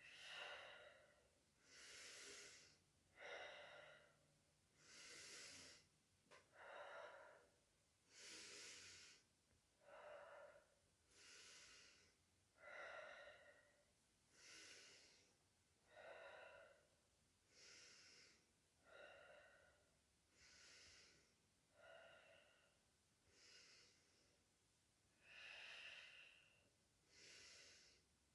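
A woman breathing deeply through her mouth on request for lung auscultation: slow, faint, airy inhales and exhales, one about every second and a half.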